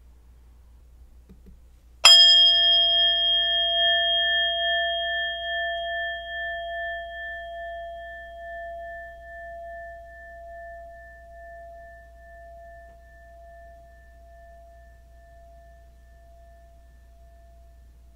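Singing bowl struck once about two seconds in, then ringing on one main tone with fainter higher overtones, wavering slightly as it slowly fades away over some fifteen seconds.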